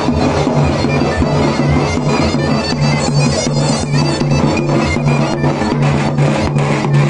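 Zurna playing a horon dance tune over steady davul drum beats.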